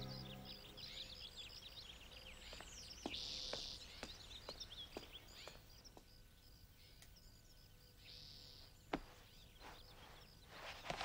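Faint birds chirping, with a run of light taps, about two a second, a few seconds in.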